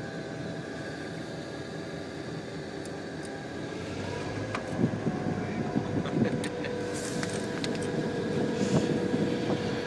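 Diesel locomotive running as it moves along the track: a steady drone with several held tones over a rough low noise. From about halfway it grows a little louder, with scattered clicks and knocks.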